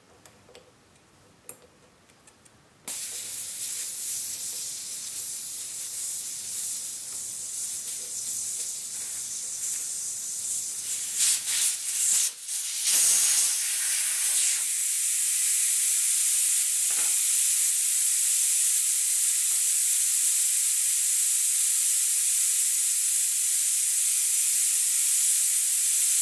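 Air hissing out of a truck tire through its valve stem as the valve core is unscrewed. The hiss starts suddenly about three seconds in, with a few small clicks near the middle, then grows louder and steadier from about halfway through as the tire deflates.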